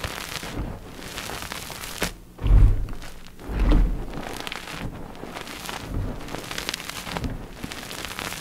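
Dip-dyed gym chalk blocks being crushed: a run of dry crunches and crackles, with two heavier low thuds about two and a half and three and a half seconds in.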